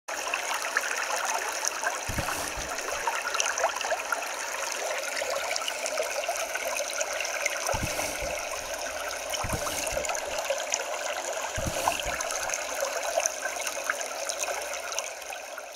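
Shallow rocky creek babbling over stones: a steady rush and trickle of water. A few soft low thumps come through now and then.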